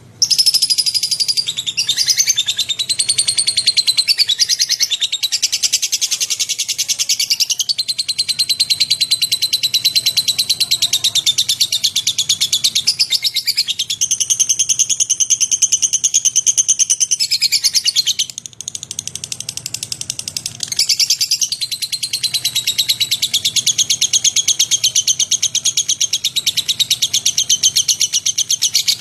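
Lovebird (Agapornis) singing a long, rapid, high-pitched chattering trill with almost no pauses. It starts abruptly, drops back briefly a little past the middle, then carries on.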